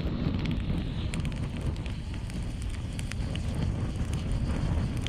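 Wood fire burning high in a steel brazier: scattered sharp crackles and pops over a steady low rush of flame.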